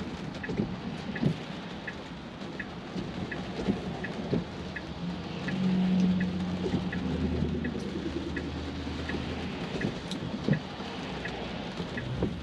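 Rain drumming on a Tesla's glass roof, heard from inside the cabin, with the turn-signal indicator ticking evenly about twice a second. Around the middle a passing vehicle adds a low hum that swells and fades.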